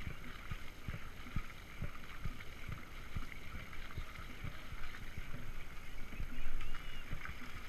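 Dragon boat under way at racing pace: water splashing and rushing along the hull as the crew's paddles work the water, with regular low thumps about twice a second.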